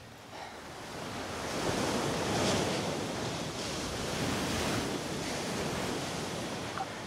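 Sea waves washing in on the shore as the tide rises, a rushing surf that swells from about a second in and surges in waves.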